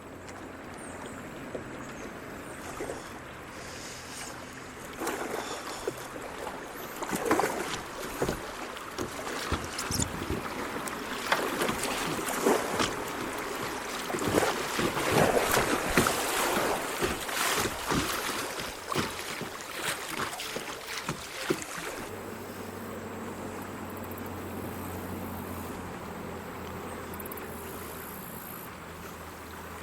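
Kayak paddling on a creek: paddle strokes splashing in the water, with a run of sharp knocks and clatters from about five seconds in until past twenty seconds, then steadier water and wind noise.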